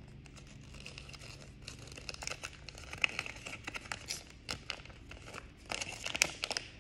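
Paper crinkling as a small folded collector's checklist leaflet is unfolded and handled, an irregular run of small crackles that grows busier about two seconds in.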